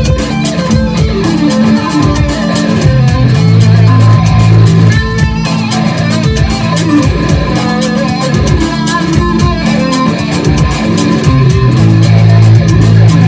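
Ibanez electric guitar played through effect pedals over a backing track with a steady beat.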